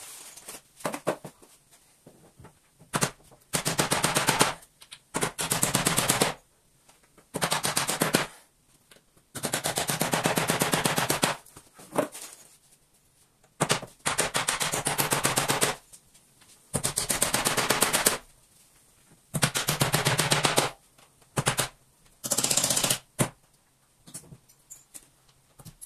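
A hammering power tool run in short bursts of about a second, roughly ten times with pauses between, each burst a fast rattle of impacts, as when fastening the wall's wooden cover battens back in place.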